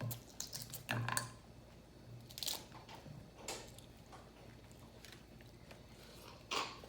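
Close-miked chewing and mouth sounds of people eating a seafood boil, with scattered short crunches and clicks every second or so.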